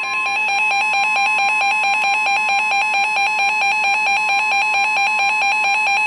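Weather alert radios sounding a severe thunderstorm warning alarm: the steady NOAA Weather Radio warning tone with a rapid pulsing electronic beep over it. It is the alert that comes before the warning message is read.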